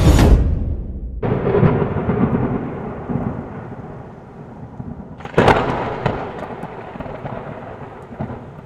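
Thunder sound effect for an animated title intro: a rumble fading at the start, a fresh rumble about a second in that slowly dies away, and a sudden loud burst about five and a half seconds in that decays into a long rumble before the end.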